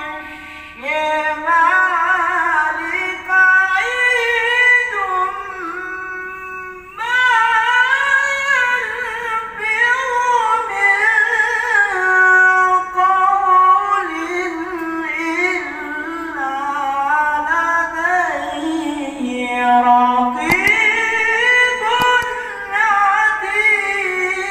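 Male Qur'an reciter (qari) chanting tilawah in the Egyptian melodic style. The voice is high and pitched, in long melismatic phrases sustained on long breaths, with ornamented pitch that winds up and down and short pauses for breath between phrases.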